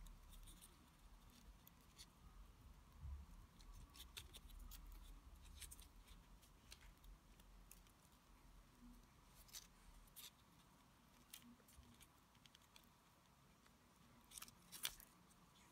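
Near silence with faint, scattered small clicks and rustles of fingers working floral tape and florist wire, and one sharper click near the end.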